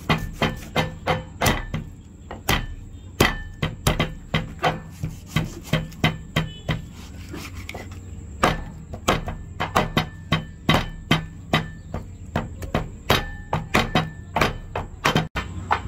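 Meat cleaver chopping through raw pork ribs on a wooden chopping board: a run of sharp chops about two to three a second, sparser for a few seconds in the middle.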